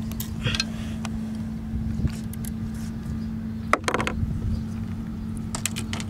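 A fish being handled in a landing net on a dock: a few light knocks and rattles, the sharpest about four seconds in, over a steady low hum.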